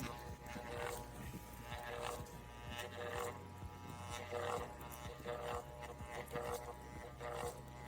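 Bauer orbital sander's electric motor running at full speed with a steady hum and a light click about once a second. The motor is overheating and dying; the owner suspects worn brushes or dust packed inside.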